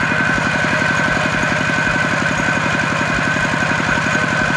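Small engine running steadily at a constant speed, with a fast, even chugging and a steady high whine. It is machinery being worked close by.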